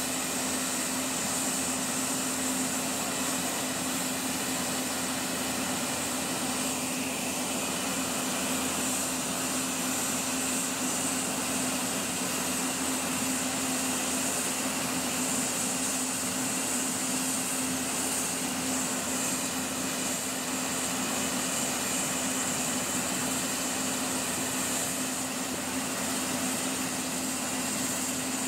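Stationary locomotive running at idle: a steady mechanical drone with a constant low hum and a high hiss that do not change.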